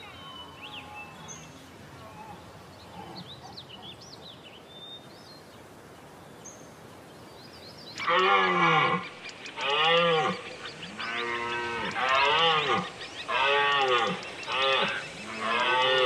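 Red deer stag roaring in the rut: from about halfway, a loud series of six or so roars in quick succession, each a deep bellow that rises and falls in pitch. Before the roars there is only a faint, quiet stretch.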